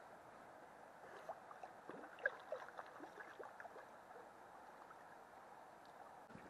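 Faint river water gurgling and lapping at the bank, with scattered small drips and ticks between about one and four seconds in.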